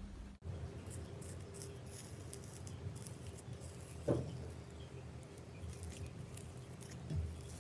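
Slime being handled and squeezed: a run of small, irregular sticky clicks and crackles, with two louder soft thumps about four and seven seconds in.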